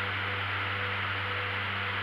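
Steady drone of a light aircraft in flight: a constant low hum with an even hiss of engine and airflow noise, unchanging throughout.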